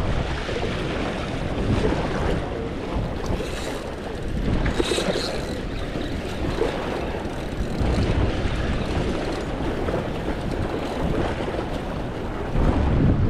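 Wind buffeting the microphone over a steady rush of water. The low-end rumble holds at an even level throughout.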